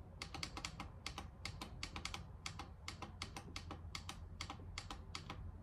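Rapid, uneven light clicking, several clicks a second, of small buttons or keys being pressed.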